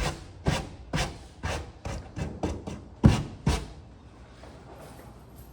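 A run of quick rubbing strokes while a part is cleaned off by hand, about two a second, stopping a little under four seconds in.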